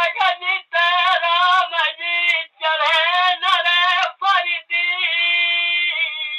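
Male voice singing a Bagheli birha folk song in a wavering, high line broken into short phrases, ending on a long held note. The recording sounds thin, with little bass or treble.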